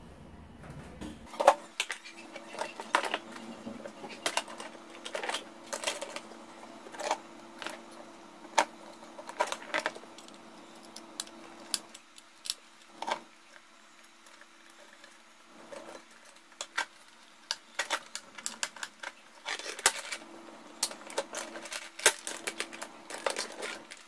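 Scattered clicks, taps and knocks of hands and a small screwdriver working on wiring: handling the plastic housing of a horn strobe sounder and a wall switch and turning their terminal screws.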